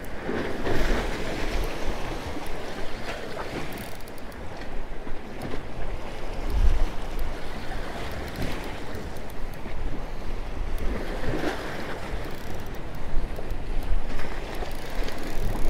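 Waves washing against jetty rocks, with several louder surges, and wind buffeting the microphone.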